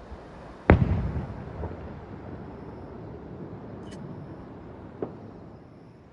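Aerial firework shell bursting with a loud boom under a second in, its rumble dying away over about a second; a second, fainter bang comes about four seconds later.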